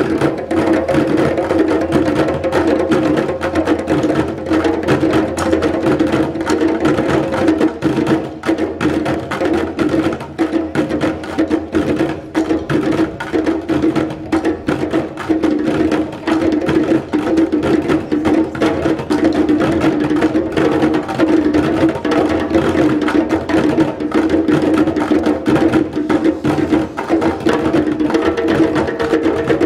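Djembe hand drums played together in a dense, steady West African rhythm, with sharp stick strikes on plastic buckets mixed in.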